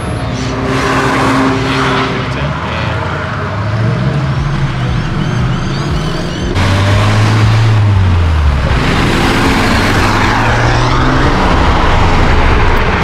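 Car engines accelerating away along the road, the engine note rising with the revs and dropping back at gear changes. About two-thirds of the way in a second, louder engine takes over, climbing and falling the same way.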